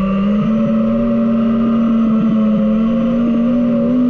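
DJI FPV quadcopter's motors and propellers whining at a steady pitch in flight, with small wavers, stepping slightly higher near the end.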